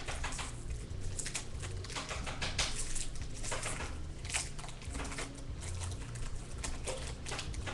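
A trading-card pack being torn open and handled: the wrapper crinkles and rustles in quick, irregular crackles, with a steady low hum underneath.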